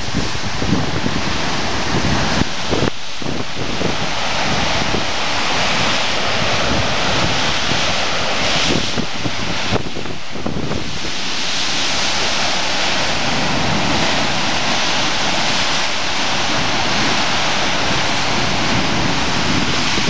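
Gale-force wind gusting hard on the microphone over big storm waves breaking and surf churning around rocks. The buffeting is heaviest in the first half, then gives way to a steadier hiss of surf and spray.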